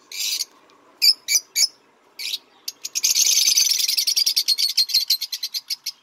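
Small birds calling: a few short harsh chirps, then from about three seconds in a fast chattering run of rapid notes.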